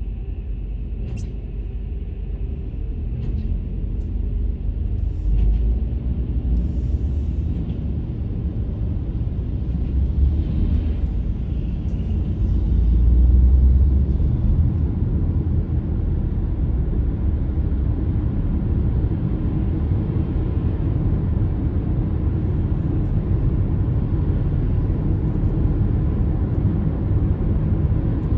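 Car driving, heard from inside the cabin: a steady low rumble of engine and tyres on a wet road. It swells about halfway through as the car picks up speed, with a few faint clicks in the first several seconds.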